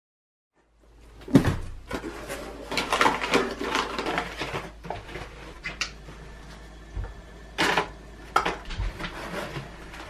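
Handling a cardboard box of OxiClean stain remover powder and the plastic bag inside: a dense run of crinkling, clicks and rustles beginning about a second in, then scattered separate knocks.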